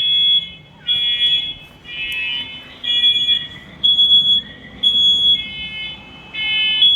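Several interconnected First Alert smoke and carbon monoxide alarms sounding together in a system test. Their high-pitched beeps repeat about once a second, the units slightly out of step and at slightly different pitches, so the beeps overlap.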